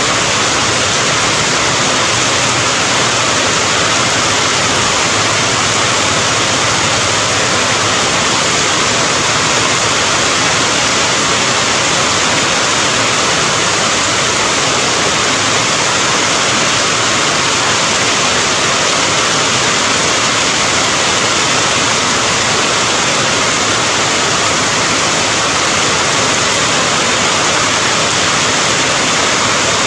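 Steady heavy rain: an even, dense hiss with no separate drops, thunder or other events standing out.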